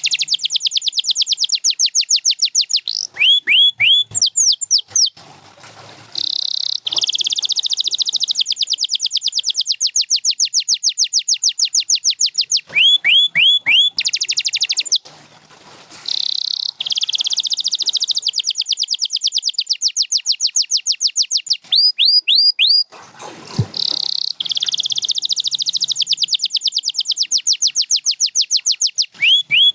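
Domestic canary singing: long trills of fast, repeated falling notes, with a few slower separate notes between phrases and brief pauses.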